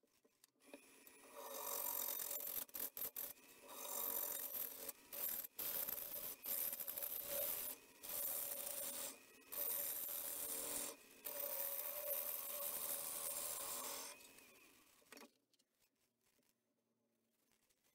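Gouge cutting a spinning yew bowl blank on a wood lathe: a steady shaving cut, broken several times by short pauses as the tool comes off the wood, that dies away near the end.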